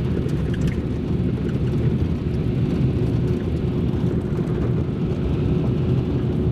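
Steady road and engine rumble of a Nissan Frontier pickup cruising on the highway, heard from inside the cab, with a faint steady hum over it.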